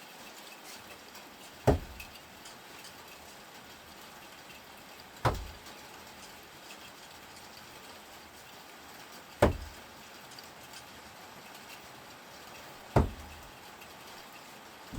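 Thrown screwdrivers striking a throwing target, four sharp thuds spaced about three and a half to four seconds apart.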